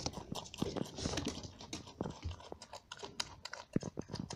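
A small furry pet nibbling Chinese cabbage: quick, crisp crunching clicks.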